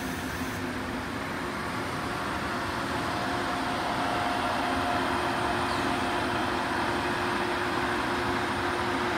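Deutsche Bahn Intercity coaches rolling slowly past as the train pulls into the station: a steady rumble of wheels on rail that grows a little louder, with a faint held tone from about three seconds in.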